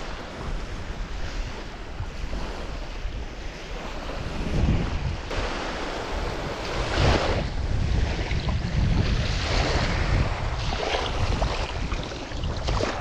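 Small waves washing onto a sandy beach, with wind buffeting the microphone; the wash swells louder about seven seconds in and again a couple of seconds later.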